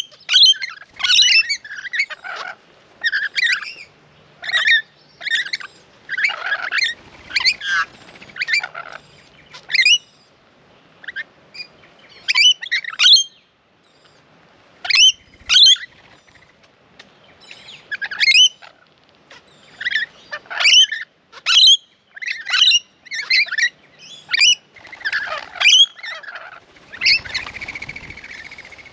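Rainbow lorikeets screeching: a fast string of short, harsh calls, many close together, broken by a couple of short pauses. A brief rushing noise comes near the end.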